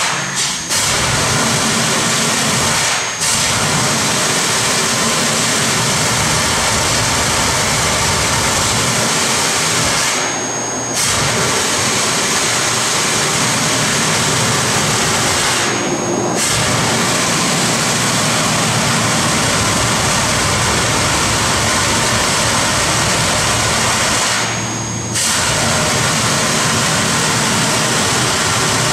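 A 2-6-0 steam locomotive blowing off a jet of steam, heard as a loud, continuous hiss. The hiss briefly eases a few times: near the start, around a third of the way in, around halfway, and once more near the end.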